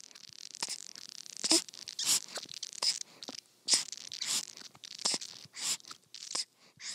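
Irregular crackly rustling and scratching close to the microphone, a short burst every half second or so, like fur or fabric rubbing near the phone.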